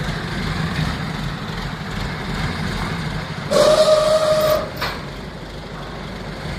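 Steady low mechanical rumble, and about three and a half seconds in a loud hissing whistle-like tone lasting about a second, ending with a click.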